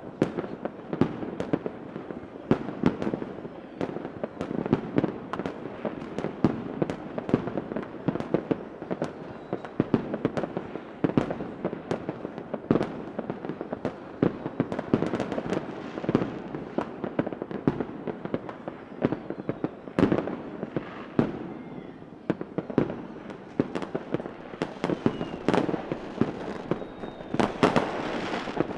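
Fireworks going off continuously: many sharp bangs, often several a second, over a steady crackle of bursting shells, with a denser crackling burst near the end.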